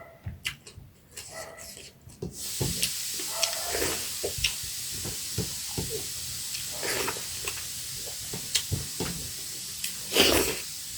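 Close-miked eating sounds: wet chewing and lip smacks at an uneven pace, with a louder smack or slurp near the end. A steady hiss comes in about two seconds in and stays.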